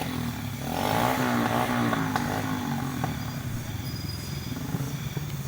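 Motorcycle engine running, louder with a wavering pitch from about half a second to two and a half seconds in, then settling back to a steady run.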